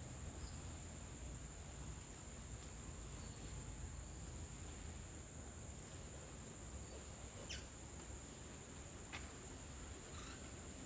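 Steady high-pitched insect drone held throughout, like a cricket, over a low background hum, with a few short faint chirps in the second half.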